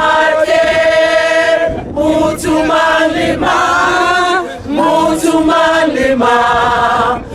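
A choir of men's and women's voices singing a song in harmony, holding long notes in phrases with short breaths between them.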